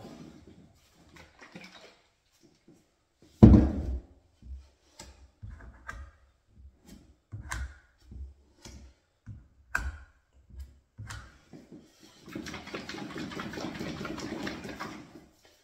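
Plastic parts of an electric paint spray gun and its paint cup being handled: scattered knocks and clicks, one loud thump a few seconds in, and a rough scraping for about three seconds near the end.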